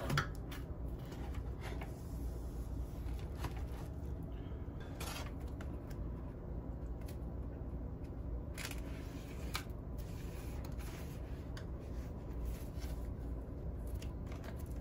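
A shrink-wrapped vinyl LP being handled, its plastic wrap crinkling and card sleeve rubbing, with a few sharper rustles about 5 and 9 seconds in, over a low steady hum.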